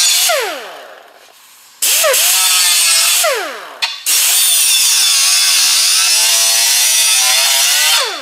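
Small right-angle Roloc disc grinder grinding the edge of a sheet-metal patch panel in bursts, trimming it a little at a time to fit. It winds down with a falling whine just after the start, runs again briefly about two seconds in, then runs for about four seconds before winding down again near the end.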